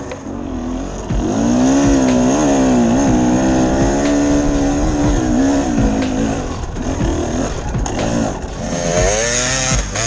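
Dirt bike engine revving hard under throttle on a steep climb, its pitch rising and falling as the rider works the throttle. It gets louder about a second in, eases off after about six seconds and climbs again near the end.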